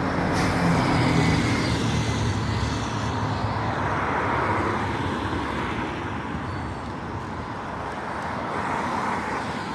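Road traffic: cars and other vehicles passing close by on a busy road, the engine and tyre noise swelling and fading as each goes past.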